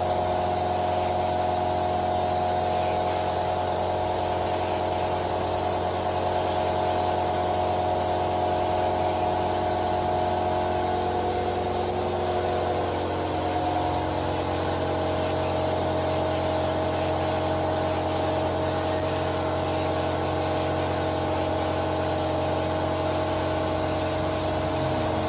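Air compressor motor running steadily with a hum whose pitch shifts slightly about halfway through, under the hiss of a hose-fed spray gun spraying finish.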